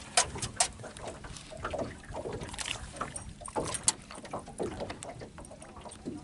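Small, irregular water splashes and light knocks as a bass is lowered over the side of a boat and released into the lake.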